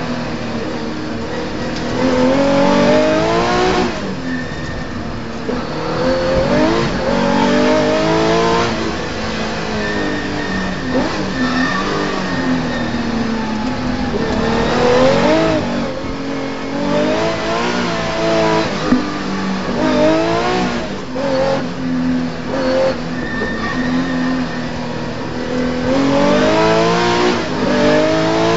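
Porsche 911 rally car's flat-six engine heard from inside the cabin, revving hard and repeatedly climbing in pitch then dropping back as the driver changes gear and lifts for corners, over road and tyre noise.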